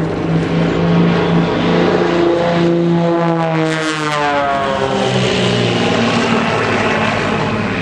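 Aerobatic propeller aircraft flying a display, their piston engines running loud and steady. About three to four seconds in, the engine note drops in pitch as a plane passes by.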